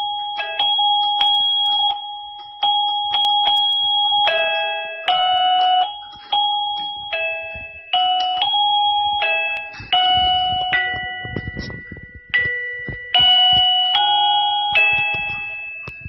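Liztek wireless doorbell receiver playing a string of short electronic chime melodies, one tune breaking off and a new one starting abruptly about every one to two seconds, as the sound-select button on its side is pressed to step through its tunes.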